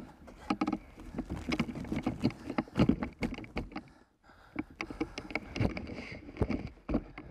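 Dogsled in deep snow: irregular crunches, creaks and knocks, with a short lull about four seconds in.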